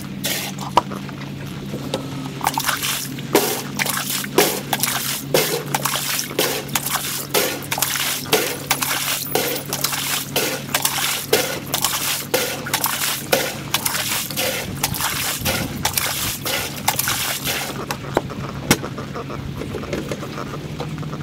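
Water trickling and sloshing as an above-ground pool is drained through a hose, sped up fourfold, with a steady low hum and many sharp clicks running through it.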